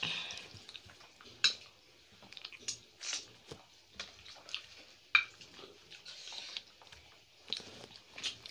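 Close-up eating sounds: wet chewing and lip smacks as fingers mix rice and chicken curry on plates, with two sharp clicks standing out.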